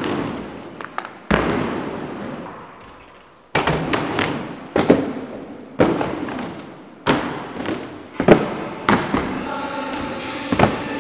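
Inline skates riding concrete and wooden skatepark ramps: the wheels roll with a fading rush, broken by a string of sharp knocks and thuds of the skates landing and striking the ramp edges, about one every second or so.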